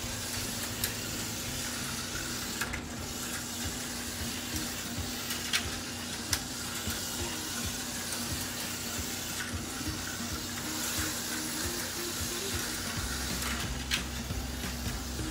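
Auto World X-Traction HO slot cars racing on plastic four-lane track: a steady hissing whir from the small electric motors and pickup shoes on the rails, with a few sharp clicks.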